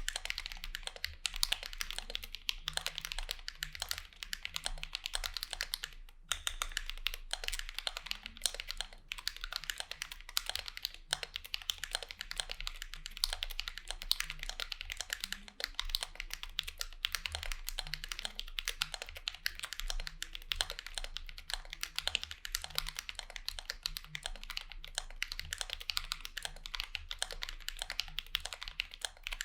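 Continuous fast typing on a Vulcan x KBDfans Maja mechanical keyboard with Drop Holy Panda tactile switches lubed with Krytox 205g0, with a brief pause about six seconds in.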